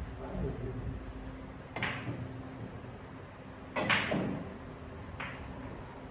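Sharp clicks of billiard cue and balls during play: three knocks, the loudest about four seconds in with a duller knock right after it.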